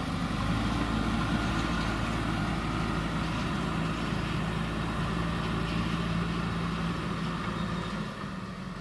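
JCB backhoe loader's diesel engine running at a steady speed, its sound dropping slightly near the end.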